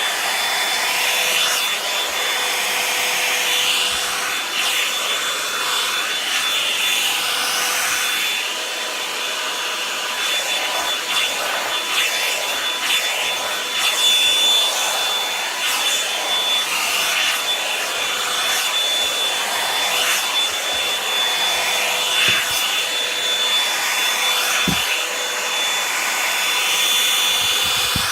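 Revlon hair dryer brush running on its high setting: a steady blowing whine from its motor, with the bristles rubbing and brushing through damp hair.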